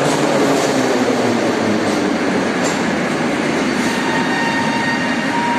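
Moscow Metro train pulling out of the station: a loud, steady rumble of wheels and running gear, with a faint high whine coming in near the end.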